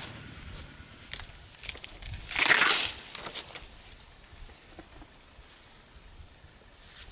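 Asian elephant feeding on banana plant stalks and leaves with its trunk: soft rustles and small crackles, with one loud rustling hiss about two and a half seconds in.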